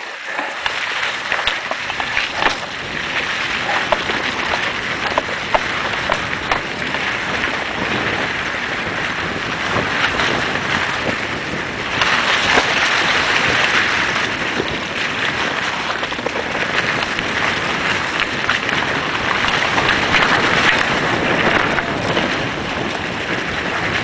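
Mountain bike descending fast on a dry-leaf-covered dirt trail: wind rushing over the microphone and tyres rolling through leaves, with frequent rattles and knocks from the bike over bumps. It grows louder about halfway through as the speed picks up.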